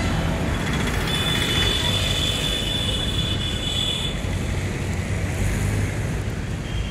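Street traffic noise: a steady low rumble of passing vehicles, with a high thin whine that starts about a second in and lasts about three seconds.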